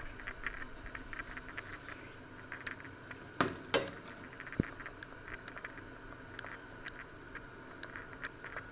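Handling noise of a handheld camera and a china plate: many small clicks and rustles, with two louder knocks about three and a half seconds in and a sharp click just after.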